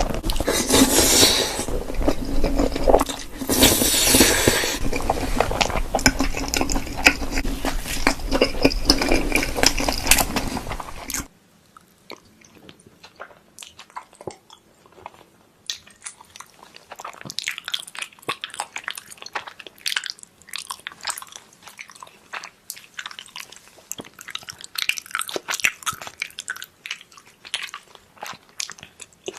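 Close-miked eating: loud crunching bites into crisp food and chewing, then about eleven seconds in a sudden cut to much quieter chewing with scattered small clicks and smacks.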